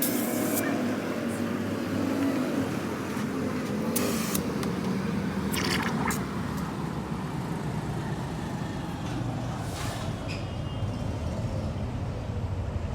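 Steady low rumble of motor vehicles, broken by a few brief sharp sounds about 4, 6 and 10 seconds in.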